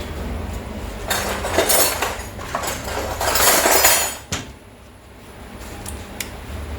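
Metal hand tools clinking and scraping against the oil drain bolt as it is refitted, in a dense stretch of about three seconds that ends on a sharp click.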